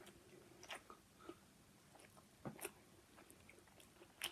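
Faint chewing of sausage, with a few short wet mouth clicks scattered through it and a louder one near the end.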